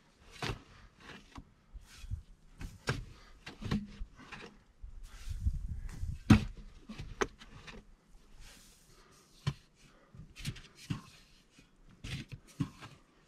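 Shovel digging into sandy soil: irregular chops and scrapes of the blade in the sand, the loudest strike about six seconds in.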